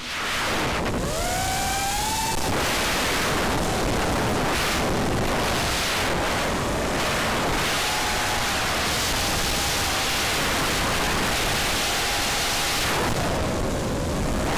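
An FPV racing quadcopter in flight, heard from its onboard camera: a steady rush of wind and propeller noise, with the motors' whine rising in pitch about a second in and holding at an even pitch in spells later.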